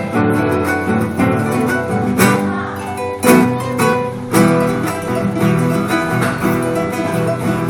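Acoustic guitar playing a fast run of plucked notes, with a few strong strummed chords in the first half.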